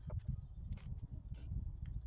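Wind buffeting the microphone in gusts, a low uneven rumble, with a couple of faint short sounds about a second in and near the middle.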